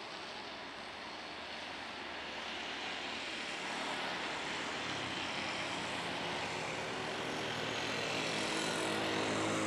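Airbus A330 airliner's jet engines running as it rolls along the runway, growing steadily louder, with a whine and steady engine tones coming in about a third of the way through.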